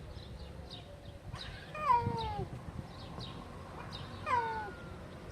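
Stray cat meowing twice, each meow about half a second long and falling in pitch.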